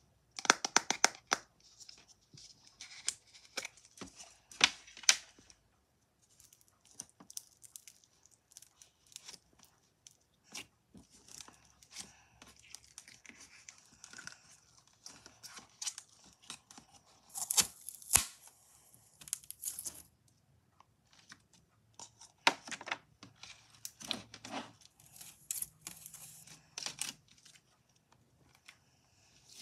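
Plastic slime tub opened and a clear green slime pulled out of it by hand: sticky crackling, popping and tearing sounds as the slime peels away from the tub. Sharp clicks and pops come in clusters near the start and again in the later part.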